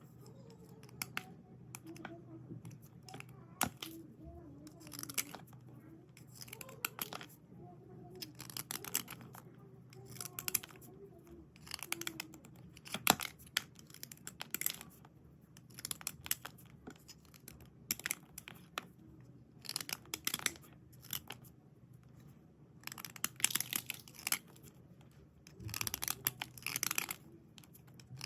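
Dry white slate pencils being rubbed and scraped clean: short, crisp scratchy strokes coming in quick bursts every second or two, with a few sharp clicks.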